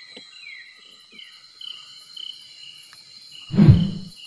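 Night insects chirping steadily in short repeated calls over a constant high drone. About three and a half seconds in comes a loud, low thump and rustle as a black plastic bag is handled.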